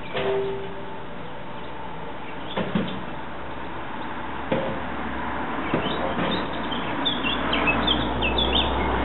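Mallard ducklings peeping: a run of many short, high calls in the last three seconds, over a steady outdoor background with a few soft knocks earlier.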